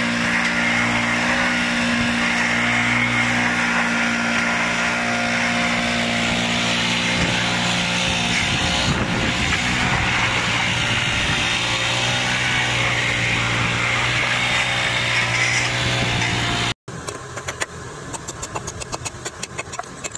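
Leaf blower running steadily at full power, blowing broken sheets of ice across asphalt. Near the end it cuts off abruptly and gives way to rapid light clicks of a stick tapping and scraping in a cut stone stencil.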